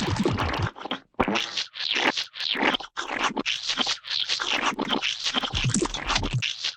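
A run of gooey, wet splat and squelch sound effects, one after another in quick succession, with brief gaps about a second in and near three seconds.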